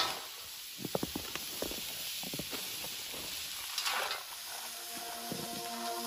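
Reindeer meat frying on a Muurikka, a cast-iron campfire griddle pan: steady sizzling with scattered sharp pops, flaring louder at the start and again about four seconds in.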